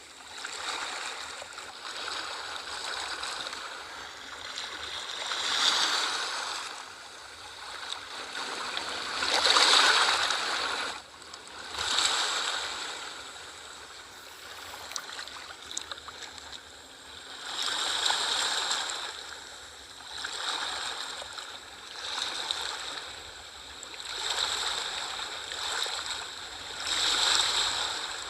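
Sea waves washing in and drawing back. The surf swells and falls every two to three seconds, with the biggest surge about ten seconds in.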